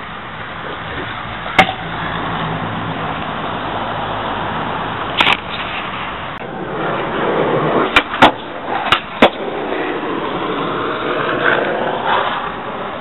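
Small hard wheels rolling over concrete with a steady rush, broken by sharp clacks of a deck hitting the ground: one about a second and a half in, one about five seconds in, and a quick run of four between eight and nine and a half seconds.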